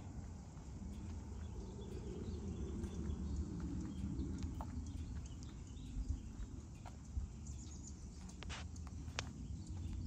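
Footsteps on asphalt, a scatter of light clicks and scuffs, over a steady low rumble.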